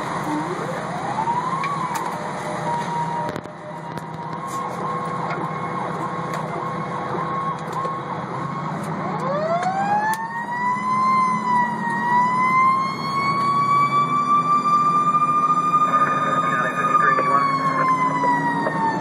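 Fire engine siren heard from inside the cab, over the truck's engine running. The siren rises in pitch briefly near the start. About nine seconds in it winds up slowly to a high, steady wail that holds, then eases down slightly near the end.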